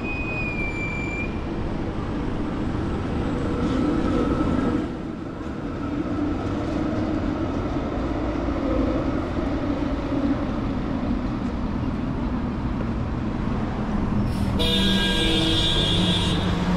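City street traffic noise: motor vehicles running past steadily. Near the end a loud, high-pitched tone joins in.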